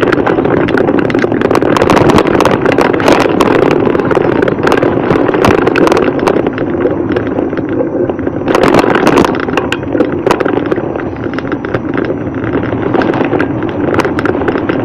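Riding noise from a bicycle-mounted camera on a rough street: a steady rush of wind on the microphone, with many sharp clicks and rattles from the bike and mount over the uneven surface, loudest about nine seconds in.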